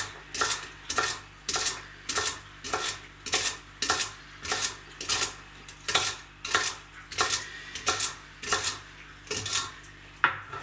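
Knife chopping a stalk of celery on a cutting board, steady sharp strokes about two a second.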